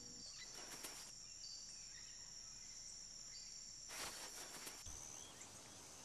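Faint ambience: a steady, high-pitched insect trill over a soft hiss, with a brief swell of noise about four seconds in.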